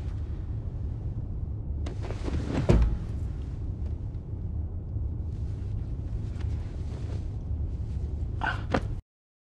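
Steady low rumble of a moving train's carriage interior, with a few sharp knocks, a heavier thud just under three seconds in, and two more knocks near the end. The sound cuts off suddenly shortly before the end.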